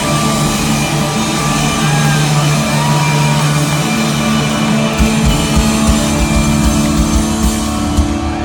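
Live rock band playing: electric guitars hold sustained chords over bass. About five seconds in, a quick run of drum hits starts as the song builds to its ending.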